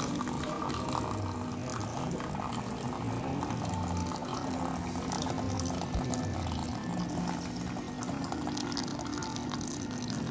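A thin, steady stream of water poured into a glass mug of flower tea, filling it.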